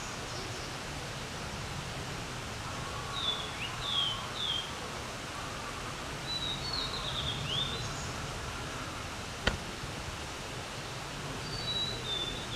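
A songbird singing three separate phrases of short, high, sliding whistled notes: about three seconds in, around six to eight seconds, and near the end. The uploader takes it for a blue-and-white flycatcher. A single sharp click comes about nine and a half seconds in.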